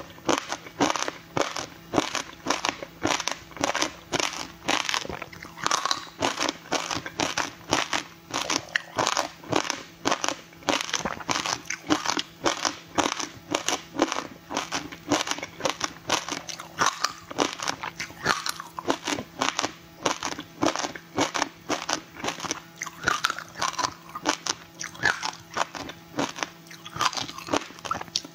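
Frozen passion fruit ice, its pulp and seeds frozen into a block, being bitten and chewed close to the microphone: an unbroken run of sharp, icy crunches and cracks.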